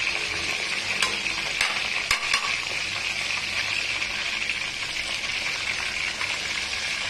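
Hot oil sizzling steadily as silkie black chicken deep-fries in a wok. A few light metal clicks come between about one and two and a half seconds in, from a perforated skimmer knocking the wok while fried garlic is lifted out.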